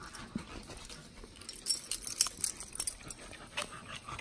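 Doberman and Staffordshire bull terrier moving about close to the microphone, with a cluster of sharp clicks and jingles about two seconds in.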